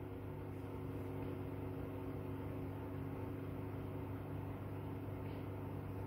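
Steady low machine hum with several fixed tones, unchanging throughout.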